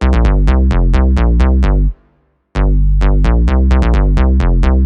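The iPhone ringtone melody played on a deep bass instrument sound, in quick, evenly spaced notes. One phrase breaks off about two seconds in, and after a short pause the phrase plays again.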